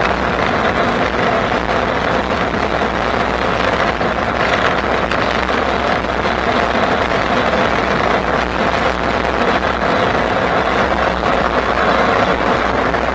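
Steady rushing road noise from a moving electric bike, with no distinct events.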